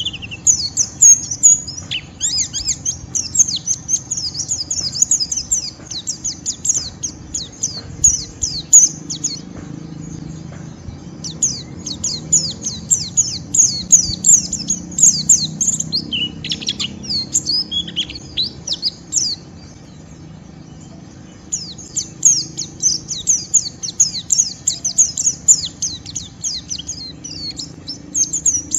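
White-eye (pleci) chattering fast and rough (ngeriwik): dense runs of quick, high, down-slurred chirps, broken twice by pauses of a second or two. This rough chatter is the bird's excited, rival-provoking song.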